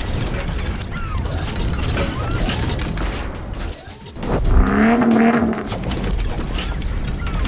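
Cinematic intro sound effects for an animated car build: mechanical clanks and whooshes over a deep rumble, with a loud pitched tone swelling in about four and a half seconds in and lasting about a second.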